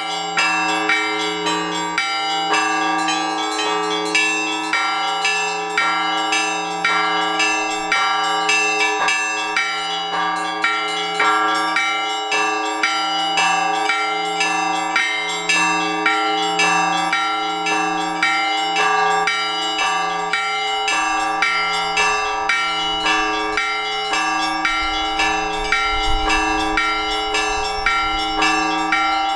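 Orthodox church bells rung together in a peal: small bells struck several times a second in a quick pattern over the sustained hum of larger bells.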